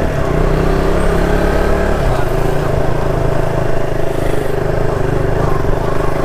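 Motorcycle engine running as the bike rides off, a steady engine note that shifts lower about two seconds in.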